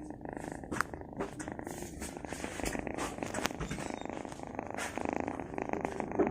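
Domestic cat purring steadily and close up: a fast, even rattle, with a few brief clicks along the way.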